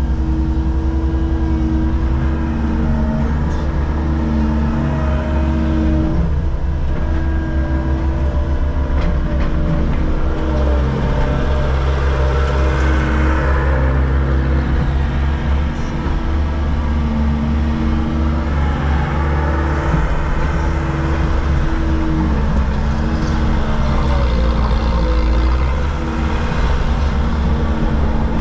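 Cat hydraulic excavator's diesel engine running under load, heard from inside the cab. The engine note dips and recovers every few seconds as the hydraulics work the boom, bucket and thumb.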